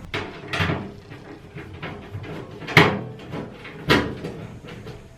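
Sharp knocks and clacks of a washing machine's casing panel being handled and its fastenings pushed home and tightened, two close together at the start and two louder single knocks about three and four seconds in.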